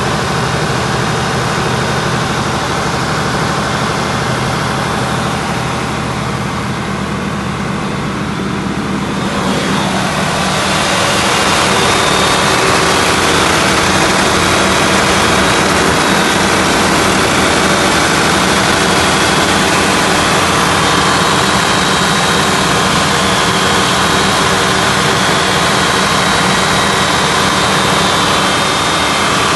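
Turbocharged diesel generator engine running steadily at constant speed, a continuous drone that becomes louder and brighter about ten seconds in and then holds steady.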